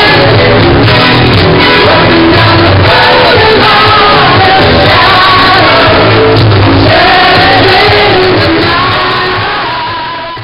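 Loud music with singing played in a nightclub, fading out near the end.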